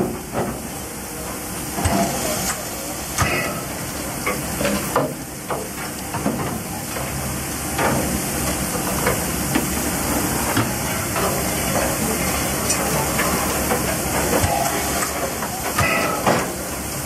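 Steady hiss of steam from the C62 steam locomotive in steam, with scattered metallic clanks and knocks.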